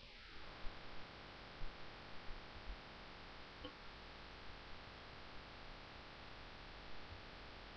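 Steady faint hum and hiss of a desktop recording setup, with scattered faint clicks of a computer keyboard and mouse as coordinates are entered; most of the clicks fall in the first three seconds.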